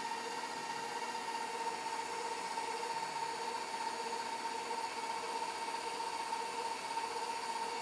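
KitchenAid stand mixer running steadily with its flat beater paddle in thin cupcake batter, an even motor whine that holds one pitch throughout.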